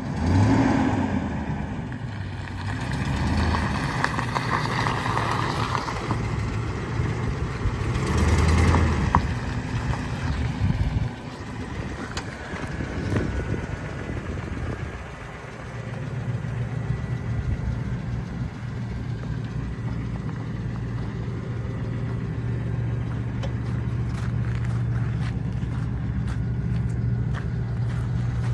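Ford F-250 Super Duty pickup engine running. It is louder and uneven for the first ten seconds or so, with a brief rise in pitch right at the start, then settles to a steady idle.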